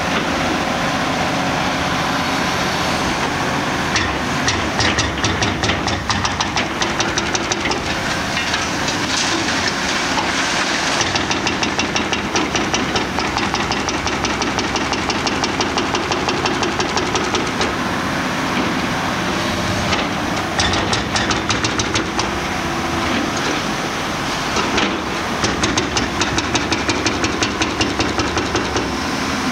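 Giant Cat-powered high-reach demolition excavator running, its diesel engine working steadily as the hydraulic boom moves. A rhythmic clatter of about four ticks a second comes and goes several times.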